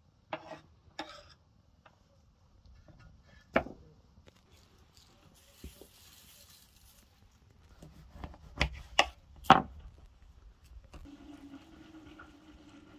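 Kitchen knife knocking on a wooden cutting board: a few scattered taps, then three quick, louder knocks as a lemon is cut. A faint hiss of salt sprinkled from the hand comes between them, and a steady low hum sets in near the end.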